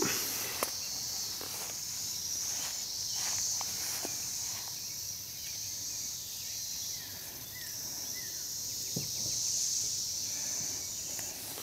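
Steady high-pitched chorus of insects, with a few faint clicks of hand handling.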